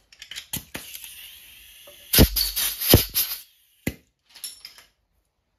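Metal hand tools clinking and clattering as they are rummaged through and handled, with several sharp knocks, the loudest about two to three seconds in. A soft hiss runs under the first two seconds, then a single click and a brief rattle follow.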